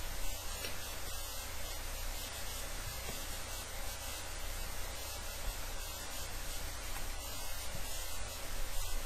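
Steady hiss with a low hum underneath: the recording's own microphone noise, with no other sound.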